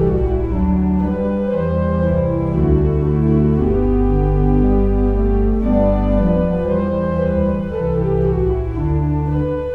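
Background organ music playing slow, held chords.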